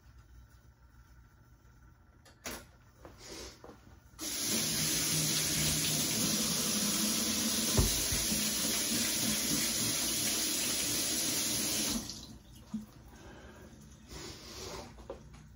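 Kitchen faucet running water into the sink: a steady rush that starts about four seconds in and is shut off abruptly about eight seconds later. A sharp knock comes just before it, and a short thump in the middle of the running water.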